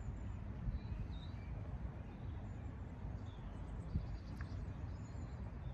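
Outdoor ambience: a low, steady rumble of light wind on the microphone, with a few faint, scattered bird chirps.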